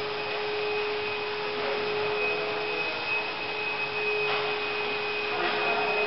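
Steady machine-like hum with two constant tones, a high whine above and a lower note beneath, over a faint even hiss. A few faint, brief rustling sounds come in the second half.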